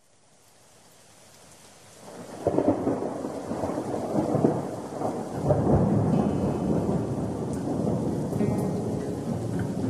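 Rain and rolling thunder fading in from silence, growing steadily louder and then swelling sharply to full strength about two and a half seconds in: a thunderstorm recording used as the intro of a gothic metal song.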